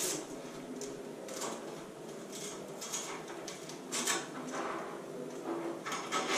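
Metal cage nuts being pushed and snapped into the square holes of a network rack's mounting rail: scattered metallic clicks and scrapes, a few louder snaps among them.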